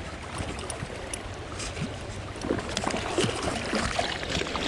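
Creek water splashing and trickling as a hooked brown trout is worked toward a landing net, with irregular small splashes and knocks that grow busier after about two and a half seconds.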